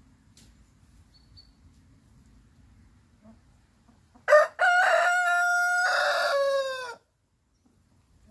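A rooster crows once, a little past halfway: a sharp opening note, then a long held note that falls away at the end and stops abruptly.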